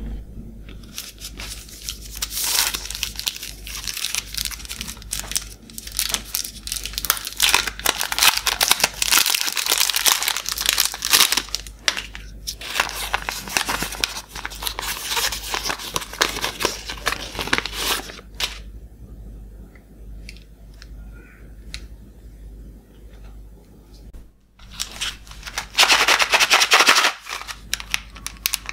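Candy wrappers being torn open and unwrapped by hand: the crinkle and tear of a chocolate bar's foil and paper wrapping, and of a small plastic wrapper. The crinkling comes in dense bouts, goes quieter for a few seconds in the last third, then returns in a loud burst near the end.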